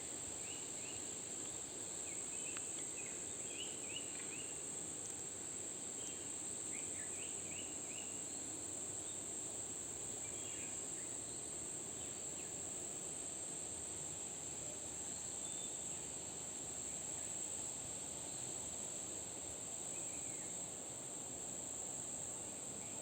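Insects droning in one steady, high, unbroken note, with a few short chirps scattered over the first eight seconds.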